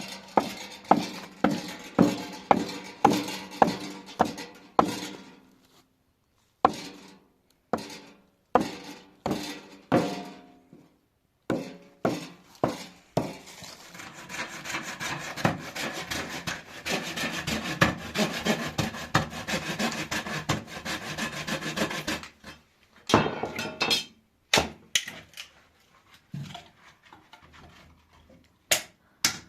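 Hand woodworking: a hammer knocking on wood about twice a second, then scattered blows, then a long steady stretch of scraping on wood in the middle, and single knocks again near the end.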